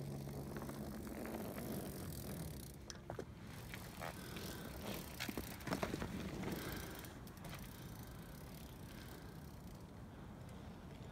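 Freewheel unicycle coasting on a dirt trail: the tyre rolls over dirt and leaves and the freewheel hub clicks. The sound is loudest as the rider passes close by about six seconds in, then fades.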